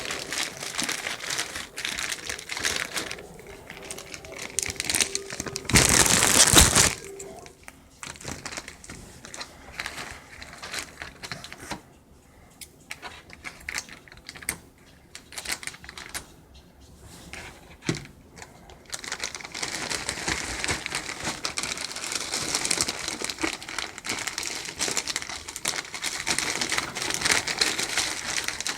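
Packaging being handled and opened: plastic and paper crinkling and rustling in irregular spurts, with a loud burst about a second long some six seconds in and a long stretch of steady rustling over the last third.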